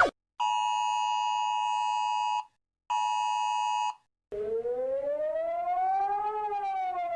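Emergency alert alarm tones: two steady, chord-like electronic beeps, the first about two seconds long and the second about one second, then a siren tone that rises slowly and falls again.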